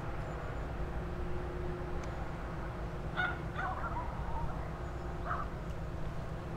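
Low steady rumble of the tug's and the cruise ship's engines during the river transfer, with a faint steady hum. A few short bird calls stand out about three seconds in and again just after five seconds.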